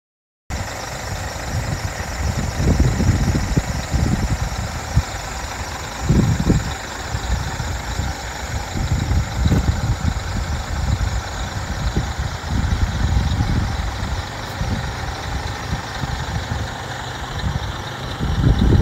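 Scania R480 truck's six-cylinder diesel engine idling steadily, with wind gusting and buffeting on the microphone.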